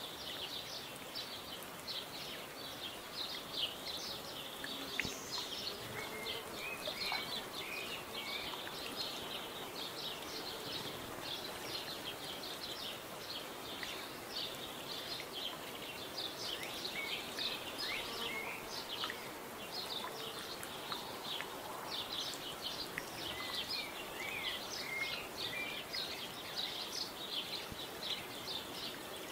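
A busy background chorus of small birds: many short, high-pitched chirps overlapping without a break, with a few lower whistled notes now and then, over a faint outdoor hiss.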